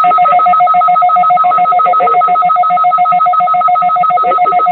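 Loud broadcast alert tone on a weather radio: two steady pitches pulsing rapidly and evenly, sounding like a telephone bell. It cuts off cleanly just after the end.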